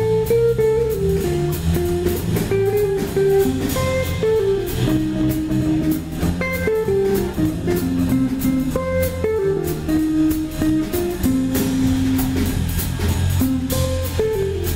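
Live jazz instrumental: a guitar plays a single-note melody line over walking electric bass and a drum kit keeping time on the cymbals.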